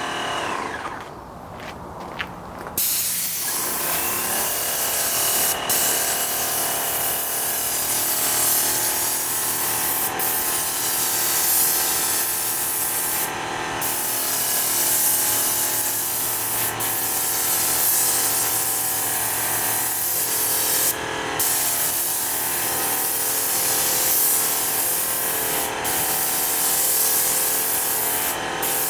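Paint sprayer running: a steady motor hum under a hiss of spray. The hiss drops away for a couple of seconds near the start and breaks off briefly several more times before starting again.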